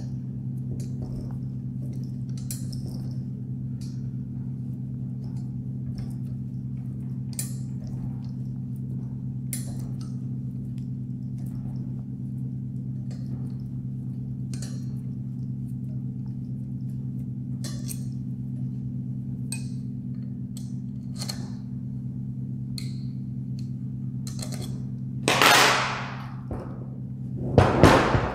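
Light, scattered clicks and taps of a metal explosion-proof light fitting being worked on by hand, its screws and parts being loosened, over a steady low hum. Near the end come two louder scrapes about two seconds apart as the heavy fitting with its wire guard is tipped and shifted on the table.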